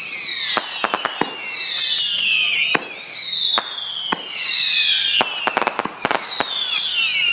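Consumer fireworks going off in quick succession: about five shrill whistles, each falling in pitch over a second or so, among sharp bangs and crackles.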